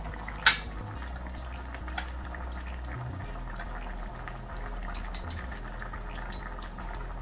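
Pot of lentil dal simmering on a gas burner, with small bubbling pops over a steady bed of noise. A single sharp click comes about half a second in.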